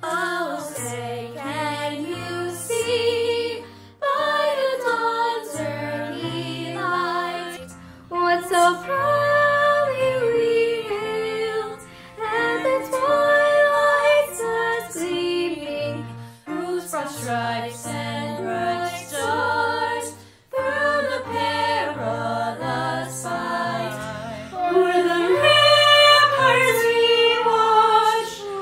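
A group of young girls singing a national anthem together, phrase by phrase with short breaths between, over a piano accompaniment.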